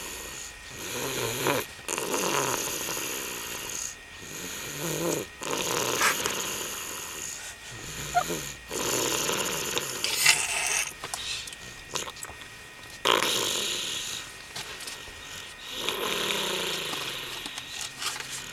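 An 18-month-old toddler snoring in sleep. Each breath is a snore, with short pauses between them, repeating every two to three seconds.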